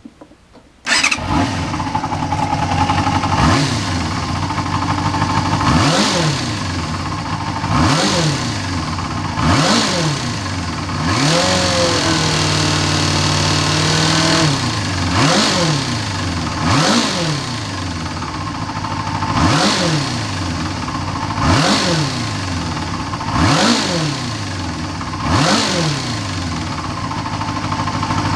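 Toyota 2KR three-cylinder engine starting about a second in, then revved again and again: about ten quick blips rising and falling back to idle, with one longer held rev in the middle. Revving brings out a rattling abnormal noise.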